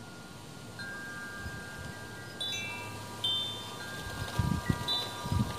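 Wind chimes ringing: a handful of clear metal tones struck at different moments, each ringing on and overlapping the others. Low rumbles come in near the end.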